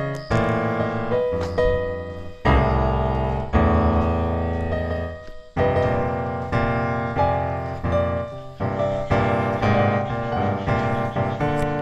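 Background piano music, slow chords struck one after another and left to ring.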